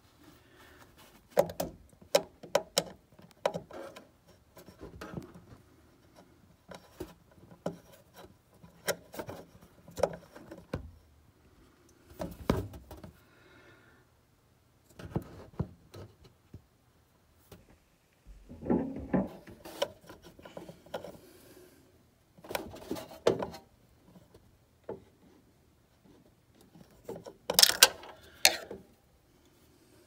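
Irregular small clicks, taps and scraping as a metal M.2 standoff is unscrewed from a PC motherboard and parts are handled inside the case. Louder clusters of knocks and rubbing come about 19 seconds in and again near the end.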